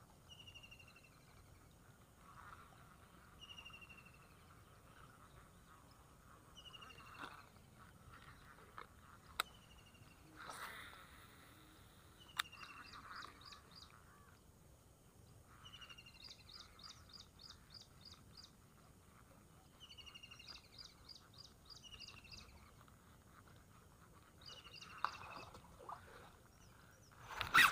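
Faint bird calls: a short, falling chirp repeated every few seconds, with bursts of rapid, high trills in between. Two sharp clicks come near the middle.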